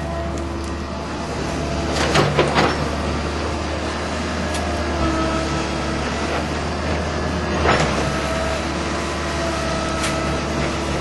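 Tracked hydraulic excavator's diesel engine running steadily, with a whine that comes and goes as it works. A few sharp knocks sound about two seconds in and again near eight seconds.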